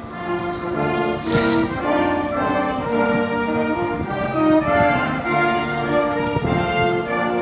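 A band with brass playing slow music in held chords.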